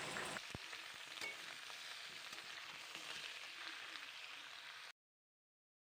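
Desi chicken pieces frying in hot oil with potato and onion in a pan: a quiet, steady sizzle that cuts off abruptly about five seconds in.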